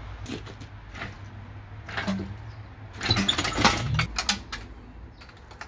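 Hydraulic engine hoist being worked to lift an engine and transmission, with scattered metallic clicks and clinks. A louder clattering stretch comes about three seconds in and ends in a short rising creak.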